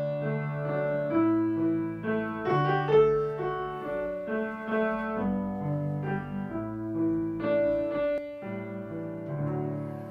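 Piano playing the introduction to a slow hymn, a series of held chords that change about once a second.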